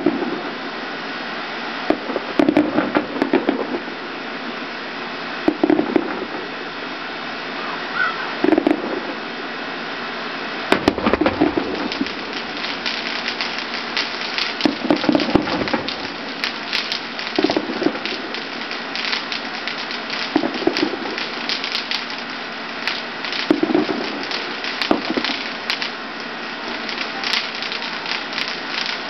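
Aerial fireworks bursting, a sharp bang about every three seconds. From about a third of the way in, a dense crackling follows the bangs.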